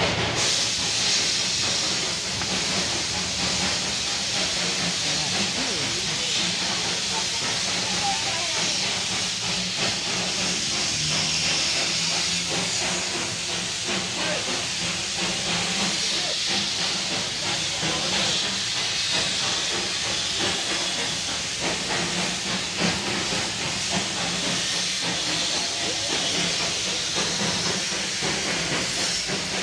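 Steady hiss of escaping steam from a Darjeeling Himalayan Railway steam locomotive, with a low steady hum underneath and no exhaust beat.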